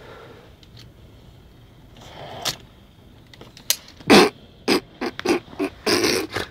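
A man asleep after an afternoon of heavy drinking, snoring with loud snorting bursts. About four seconds in comes one big snort, then several short ones in quick succession, then a longer snore near the end.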